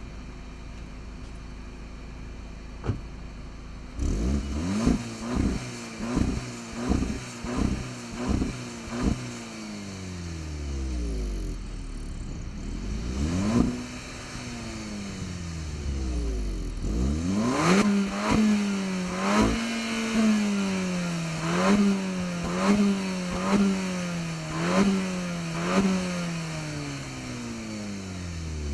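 Seat Ibiza Cupra 6P's four-cylinder turbo petrol engine on its stock exhaust, idling steadily, then revved in a series of quick throttle blips. It is then run up and let fall back twice, held at raised revs with repeated blips on top, and drops back to idle near the end.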